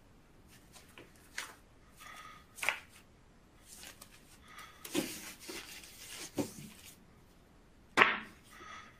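Snow shovel scraping and scooping snow in slow, deliberate strokes: a series of separate short scrapes a second or so apart, the loudest about eight seconds in.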